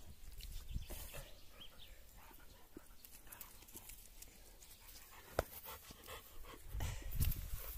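An American bulldog panting in the heat. A single sharp click comes a little past halfway, and a louder spell of rubbing and handling noise near the end as a towel goes over the dog.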